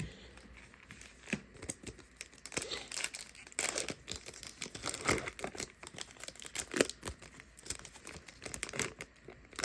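Plastic trading-card pack wrappers being torn and crinkled open by hand, a run of irregular crackles and rips, the sharpest about two thirds of the way through.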